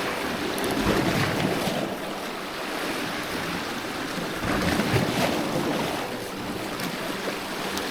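Sea waves washing against rocks, with wind buffeting the microphone; the wash swells about a second in and again around five seconds.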